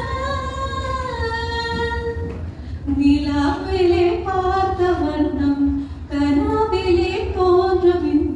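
A woman singing solo and unaccompanied into a microphone, holding one long note for about two seconds, then a brief pause before moving on through a melodic phrase. A steady low hum runs underneath.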